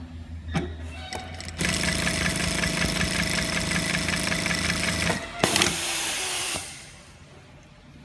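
DUMA DM1969 single-needle industrial sewing machine, with a stepper-motor-controlled feed, running and stitching a seam in a three-forward, one-back pattern for about three and a half seconds. A sharp click and a shorter burst of machine noise follow as it stops.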